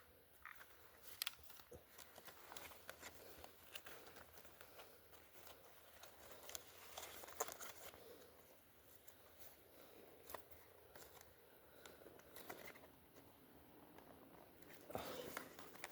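Near silence: faint rustling, with a few sharp clicks scattered through it.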